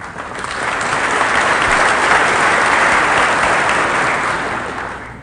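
Members of Congress applauding. The applause swells over about the first second, holds, then fades out near the end.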